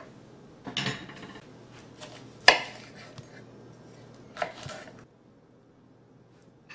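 Kitchenware handled on a stone countertop: a few short clatters, with one sharp knock about two and a half seconds in as the loudest.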